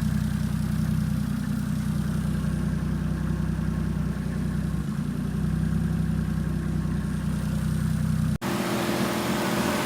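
Toyota 1JZ inline-six engine idling steadily while its cooling system is bled through a newly fitted swirl pot. About eight seconds in, the sound cuts abruptly, and the idle continues with more hiss.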